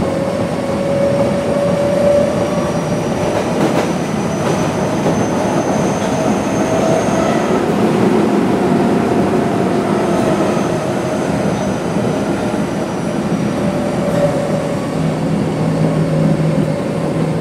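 Osaka Metro 23 series subway train with Mitsubishi GTO-VVVF traction equipment running between stations, heard aboard: steady rumble of wheels on rail with faint whining tones, and a low hum that sets in near the end.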